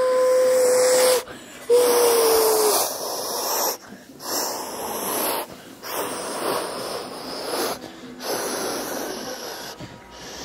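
A person imitating a jet airliner taking off with their voice. A held humming tone ends about a second in, then comes a short tone falling in pitch, then a run of breathy hissing whooshes, each about a second long with short gaps between them.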